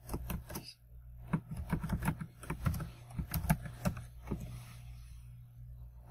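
Computer keyboard keys clicking as a password is typed, a quick irregular run of keystrokes that thins out about four and a half seconds in, over a steady low hum.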